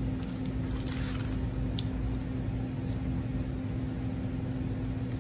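A steady machine hum with a low rumble beneath it, with a few faint clicks over it. The hum stops at the very end.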